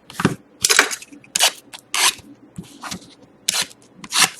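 Cardboard trading-card boxes being handled on a table: an irregular run of about a dozen short, sharp clicks and taps.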